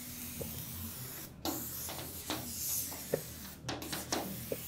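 Compressed-air blow gun on a coiled air hose hissing in blasts, blowing dirt out of the gap between the sliding door's seal and the glass, with short breaks about a second and a half in and again near the end.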